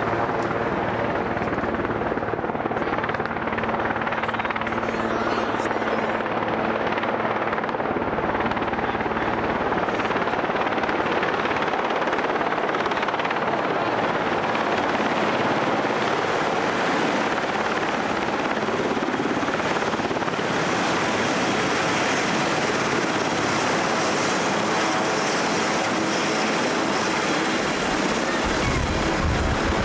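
Sikorsky VH-3D Sea King helicopter (Marine One) running its rotor and twin turbines as it descends to land, a loud steady beating rush. A high turbine whine comes in about two-thirds of the way through, and a low rumble swells near the end as it comes close.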